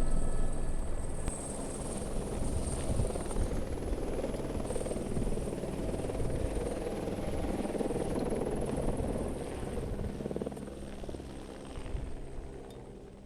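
Helicopter running, a dense rotor and engine noise with a faint high turbine whine above it. It dies down over the last few seconds.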